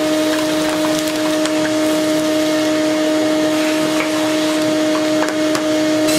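Shop vacuum running with a steady hum, sucking up wood chips and debris from a workbench, with scattered clicks of the pieces rattling up the hose.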